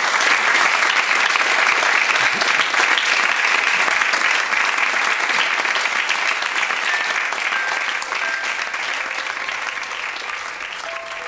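Audience applauding: a dense, steady clatter of many hands clapping that slowly dies down toward the end.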